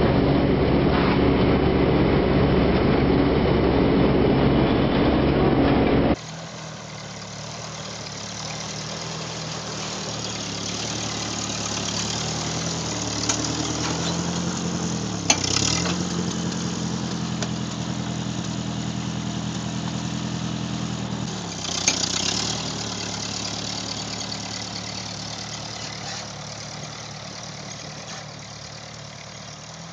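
A combine harvester runs loud and steady beside a truck full of grain. After about six seconds it cuts to a vintage Ford N-series tractor engine pulling a plow through sod. The tractor's pitch sags twice under load, each time with a sharp click, and its sound fades as it moves away.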